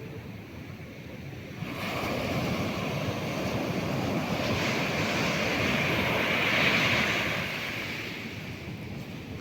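Sea waves breaking on the shore: one wave's wash swells about two seconds in, is loudest about two-thirds of the way through, then falls away.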